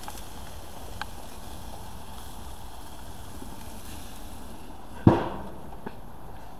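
Steady hiss of a gas grill with chicken cooking on it, with a couple of light clicks and one loud thump about five seconds in.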